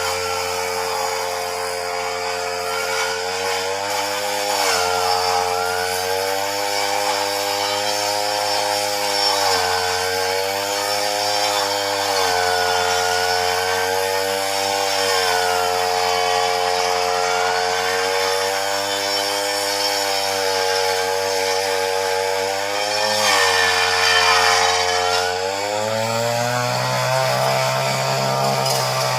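Chainsaw cutting tree branches. Its motor runs continuously, and the pitch dips and recovers every few seconds as the chain bites into the wood.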